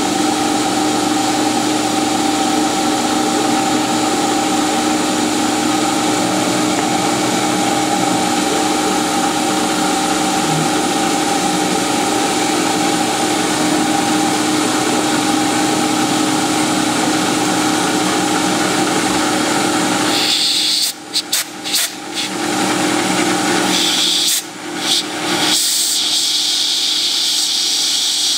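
Small CNC milling machine running at top spindle speed, its 1/16-inch end mill cutting a groove into a brass disk: a loud, steady machine whine with several held tones over a hiss. About two-thirds through it breaks off briefly twice, and after that the low hum is gone, leaving a higher hiss.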